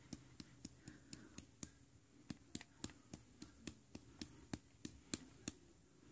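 Light, quick taps, irregular at about three to four a second: a hand knocking a small plastic toy container to shake loose the powder inside.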